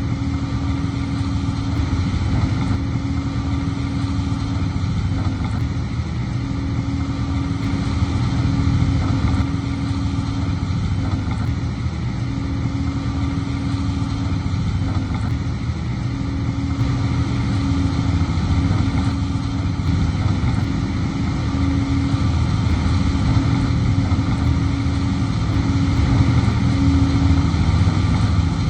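Diesel engine of a heavy earthmoving machine running steadily, its level rising and falling a little.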